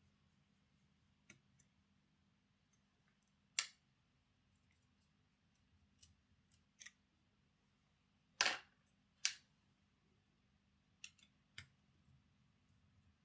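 Scattered small clicks and taps from a model locomotive's small parts being handled and taken apart. About ten sharp clicks come at irregular intervals, the loudest pair about eight and nine seconds in.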